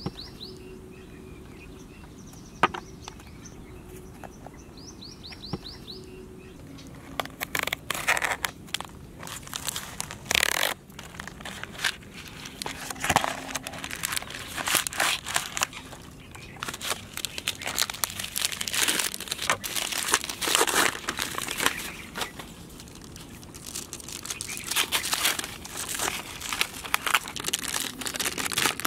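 Cadbury chocolate wrappers and packaging being torn open and crumpled, in repeated crinkling bursts from about seven seconds in. Before that, birds chirp briefly.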